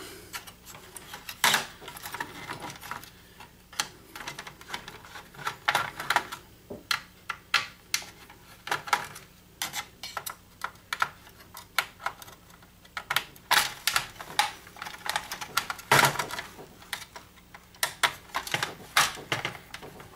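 Irregular clicks and taps of a screwdriver and plastic and metal parts being handled while a digital projector is taken apart, with a louder clatter now and then.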